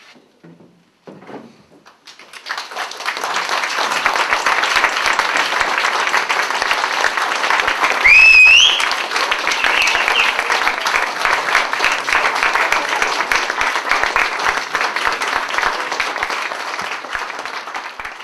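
Audience applauding, starting about two seconds in after a quiet opening and holding steady, easing off slightly near the end. A loud, rising whistle of approval cuts through the clapping about eight seconds in.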